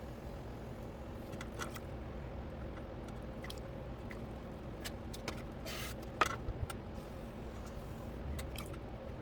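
Electric potter's wheel running with a steady hum while wet clay squishes and scrapes in short strokes, the sharpest about six seconds in.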